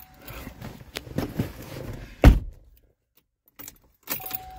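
Inside a 2015 Chevrolet Impala, a steady warning tone stops just after the start, followed by clicks and rustling of hands at the controls and one loud thump a little past two seconds, as the car is switched off to power-cycle it. The same steady tone comes back near the end.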